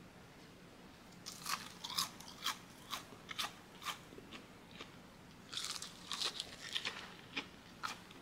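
Crisp-coated karaage (Japanese fried chicken) being bitten and chewed. The sharp crunches start about a second in at roughly two a second, pause briefly around the middle, then come thicker again.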